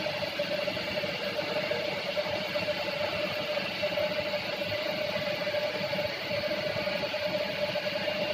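Tool-room milling machine running steadily, a constant machine hum with a steady whine from its drive.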